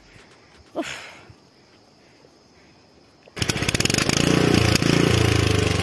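Small petrol engine of a walk-behind power tiller running loudly with a fast, even firing beat. It cuts in abruptly about three seconds in, after a quiet opening.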